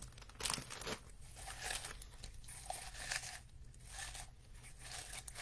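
White shredded-paper filler rustling and crinkling in irregular handfuls as it is pushed by hand into a small clear jar ornament.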